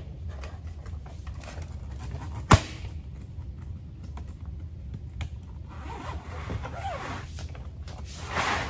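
A hard-shell suitcase being handled: one sharp knock about two and a half seconds in, then scraping and rustling, with a zip pulled near the end. A steady low hum runs underneath.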